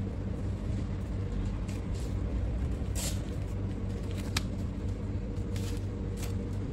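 Steady low rumble of commercial-kitchen background noise, with a few short clicks and rustles from a bamboo sushi rolling mat being pressed around a roll and lifted off it.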